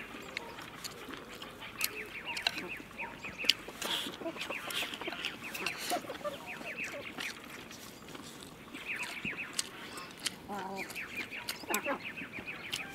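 Eating sounds: chewing, and chopsticks clicking against a bowl of rice. Birds call in quick chattering runs in the background, several times.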